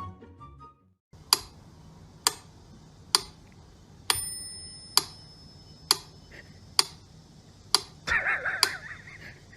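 A steady series of sharp clicks, about one a second, several of them followed by a brief high ring. Near the end there is a short rustling burst.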